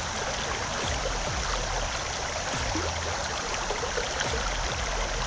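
Steady rush of river current flowing and swirling around the wading angler.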